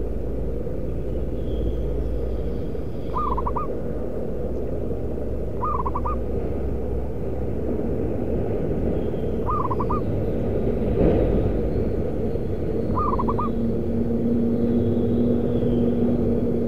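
Zebra dove cooing: four short calls of quick repeated notes, a few seconds apart, over a steady low rumble.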